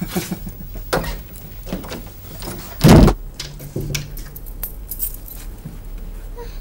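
Keys jangling and clicking as a door is unlocked and opened, with a heavy thump about three seconds in.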